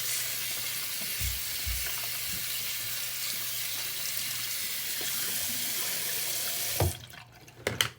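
Tap water running steadily into a sink while a lace wig is rinsed under it to wash out shampoo. The water cuts off suddenly near the end, followed by a thump and a couple of clicks.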